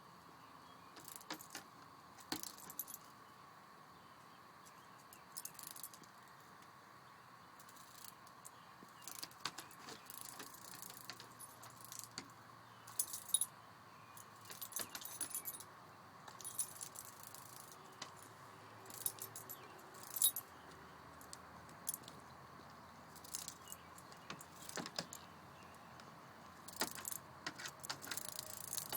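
Metal collar tags jingling in short irregular bursts as a pet moves about, over a faint steady hum.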